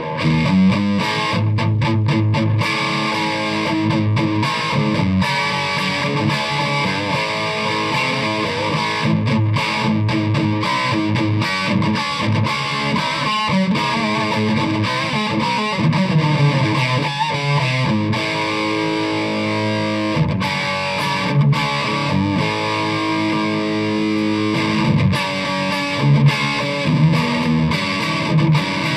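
Electric guitar with Gibson mini humbuckers played through a Sollo Amps Mini 8 amplifier and a 1x12 cabinet with an Eminence GB128 speaker, recorded dry with no effects. The playing begins abruptly and runs on as a continuous passage of notes and chords.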